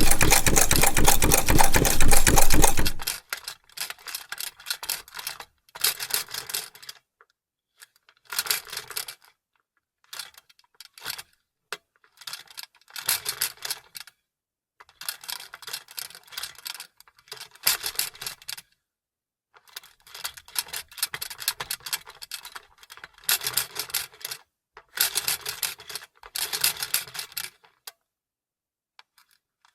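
Vintage sewing machine stitching: a loud, fast run for about the first three seconds, then a series of short runs of rapid clicking with brief pauses between them.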